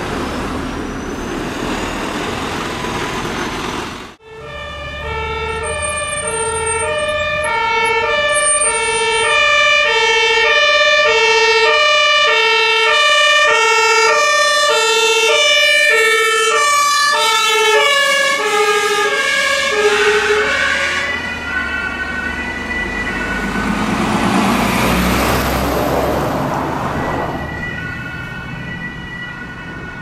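German two-tone emergency siren (Martinshorn) on an ambulance, switching between a high and a low note about once a second as it approaches. The notes slide lower as it passes, giving way to the rush of the vehicle driving by. It is preceded by a few seconds of road noise that cuts off abruptly.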